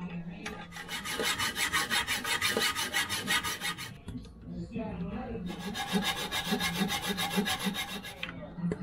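Mini hacksaw cutting through a toilet closet bolt at the toilet base, in quick back-and-forth strokes. There are two runs of sawing with a short pause about four seconds in, trimming the bolt down flush.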